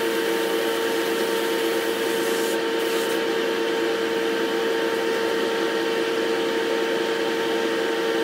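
Paint spray booth's exhaust fans running: a steady rush of air with a constant hum underneath.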